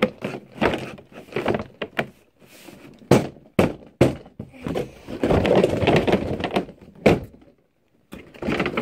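A series of knocks and thuds from a cardboard box and its packaging being handled, with a longer stretch of rustling about five seconds in.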